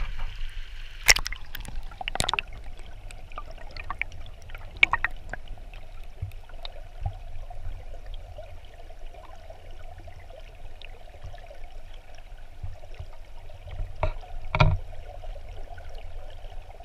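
Creek water rushing over rocks, heard through a camera held under the surface: a muffled, steady rumble. A few sharp knocks and clicks come through, the loudest about a second in, two seconds in, and twice around fourteen seconds in.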